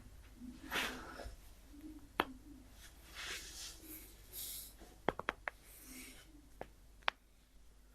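Sharp joint cracks from self-adjusting the spine and neck: one crack about two seconds in, a quick run of four cracks around five seconds in, and two more near the end, with soft breaths between them.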